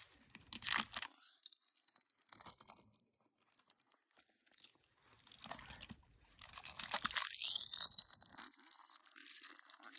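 Plastic shrink wrap being picked at and torn off a small container: scattered crackles and crinkles at first, turning into denser, continuous crinkling and tearing about six seconds in.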